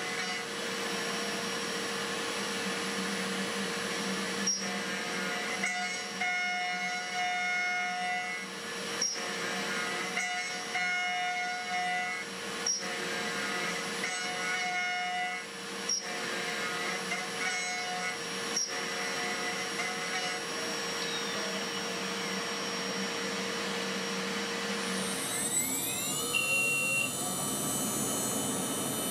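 Spindle of a home-built CNC milling machine cutting steel with an end mill: a steady whir with a constant tone and a sharp tick every second or two. Near the end the cutting stops and a rising whine takes over as the spindle speeds up, then holds a higher steady pitch.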